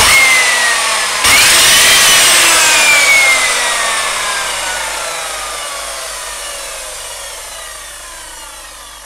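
Evolution Rage 3S mitre saw's brushed motor and blade switched on in two quick blips about a second apart, then released. The whine falls steadily in pitch and fades as the motor spins down. The new brushes spark heavily at the commutator, which the owner takes for an armature problem.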